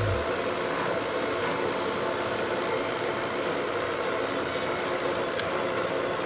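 Visutec VS6040 laser cutter running while it cuts masked acrylic: a steady whir and hiss with a thin, steady high whine.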